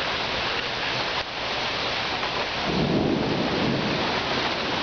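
Steady rain, with a short low rumble of thunder a little under three seconds in that lasts about a second.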